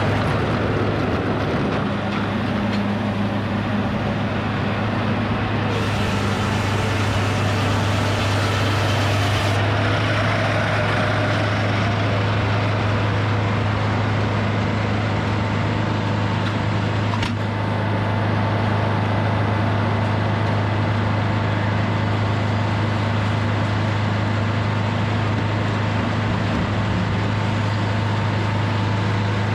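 Engine of a hydraulic sawmill running at a steady speed with a constant hum; a faint higher tone joins about halfway through.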